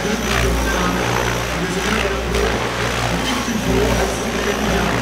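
Minicopter Diabolo 600 RC model helicopter in flight, its rotor whirring steadily and echoing in a large hall, with voices in the background.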